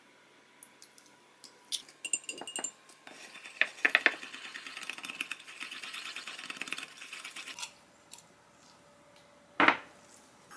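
A small wire whisk beating egg yolks in a small ceramic bowl: a fast, dense run of clinks lasting about four seconds, after a few light clicks. Near the end, one sharp knock as something is set down.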